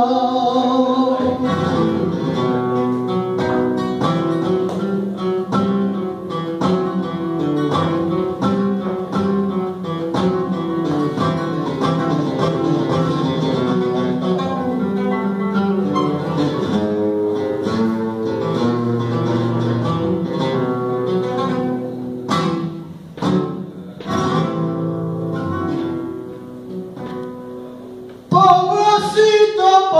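Flamenco acoustic guitar playing a solo passage of plucked runs between sung verses, with a few sharp strokes about two-thirds of the way through and a softer stretch before the end. A male flamenco singer's voice finishes a held note about a second in and comes back in loudly near the end.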